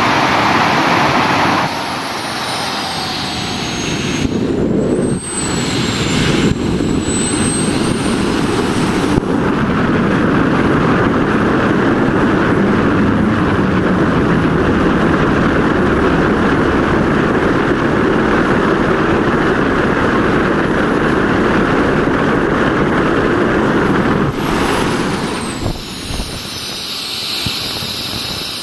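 Handmade turbojet engine running with a steady loud roar and a high turbine whine that glides up and down, its afterburner lit through the middle part.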